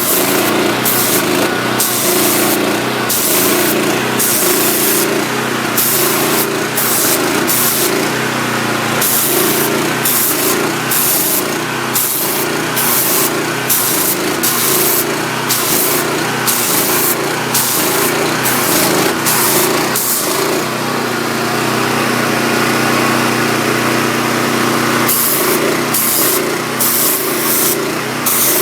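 Gas pressure washer running steadily, its Honda engine under the hiss of the high-pressure water jet from the wand. The spray hiss rises and falls in bursts and drops away for a few seconds near the end, then comes back, while the engine keeps running.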